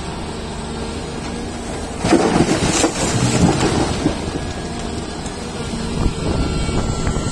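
Volvo EC480DL excavator's diesel engine running steadily. About two seconds in, a loud rumble of tumbling coal and rock lasts around two seconds, and the rumble picks up again near the end.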